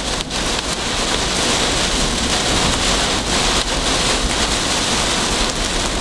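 Heavy wind-driven rain pelting a moving car, heard as a steady, dense hiss.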